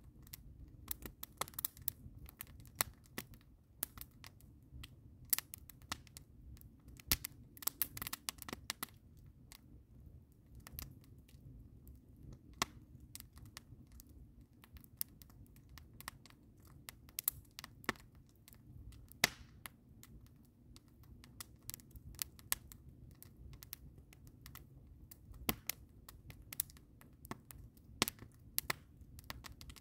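A smoky wood fire of split logs just catching, crackling with irregular sharp pops of differing loudness over a steady low rumble.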